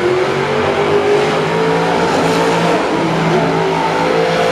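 Monster truck engines revving hard under racing load, their pitch rising and falling.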